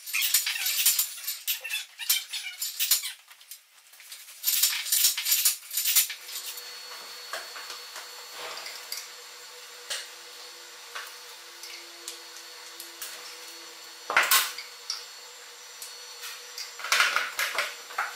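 Metallic clinking and rattling from the hand-cranked turning gear of an 1895 Worth Mackenzie triple-expansion steam engine, its gears and pinion meshing with the flywheel teeth as the engine is turned over by hand. The clatter comes in bursts for the first six seconds. After that a faint steady hum remains, with occasional clinks and two more clattering bursts near the end.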